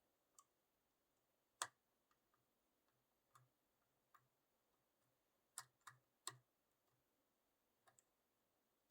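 Faint, irregular clicks and taps of a lock pick and tension tool working the pins of a 6-pin Clark-Anxter Platinum lock cylinder, with a quick group of three clicks about two-thirds of the way through.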